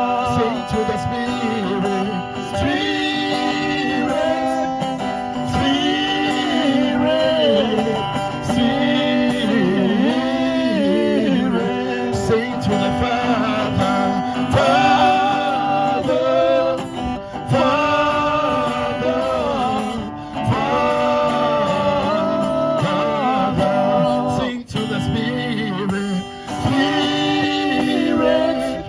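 Music: a worship song sung by a voice with guitar accompaniment.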